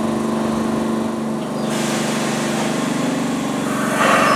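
Idling MBTA Orange Line 01200-series subway car at a platform, its onboard equipment giving a steady, several-toned hum. A hiss joins a little under two seconds in, and a louder rush of noise comes in near the end.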